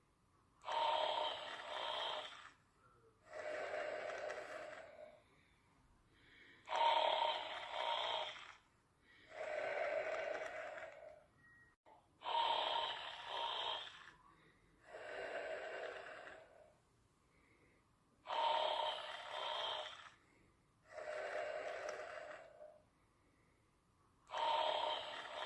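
A sleeper snoring in a steady rhythm. Each breath brings a louder snore followed by a softer one, repeating about every six seconds with short quiet gaps between.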